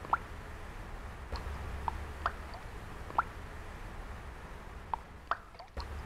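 Single water drops plopping at uneven intervals, about six short blips, over a low steady hum that breaks off briefly near the end.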